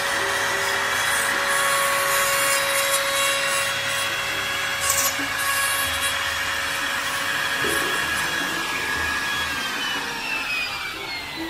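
Handheld electric trim router running at speed, its bit cutting the wood of an acoustic guitar's top to level a flat seat for the bridge. Near the end the motor is switched off and its whine falls steadily in pitch as it spins down.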